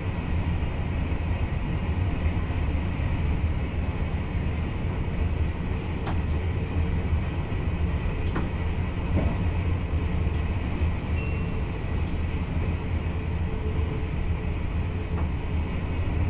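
Cab noise of a VIRM double-deck electric train running along the line: a steady low rumble and hum with a few faint clicks. A brief high tone sounds once about eleven seconds in.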